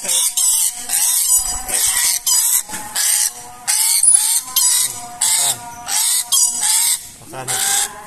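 Chattering lory giving loud, harsh screeches over and over, about two to three a second.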